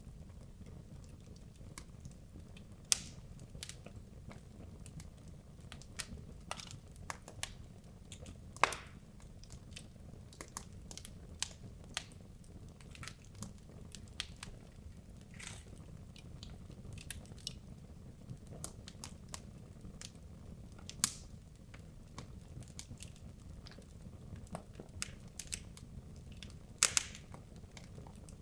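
Wood logs burning in a fireplace: irregular crackling with scattered sharp pops, a few much louder snaps, over a low steady rumble of the fire.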